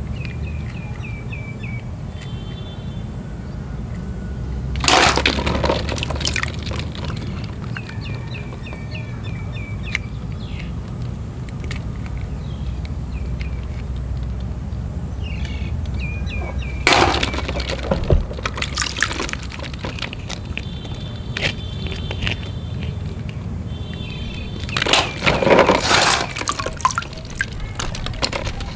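Plastic balls knocking together and water sloshing in a tub as a small toy vehicle is pushed in among the floating balls, in three short bursts, over a steady low rumble.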